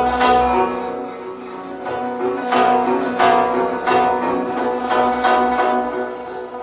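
Background music: a plucked string instrument playing a slow melody, its notes struck one after another and left to ring.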